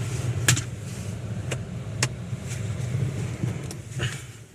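Steady low rumble of a car engine running, with several sharp clicks and knocks over it; the rumble fades away just before the end.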